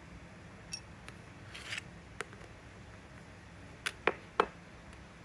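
Plastic beads strung on a wire clicking as they are handled: a few faint ticks and a short rustle, then three sharper clicks in quick succession about four seconds in.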